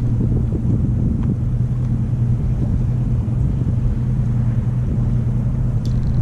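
Boat's outboard motor idling steadily with a low, even hum.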